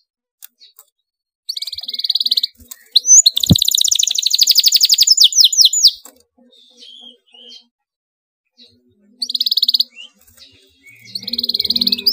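Canary singing in excited bursts, with fast, tightly packed rolling trills. The longest and loudest roll comes in the first half, followed by a pause of a few seconds and then more short bursts near the end.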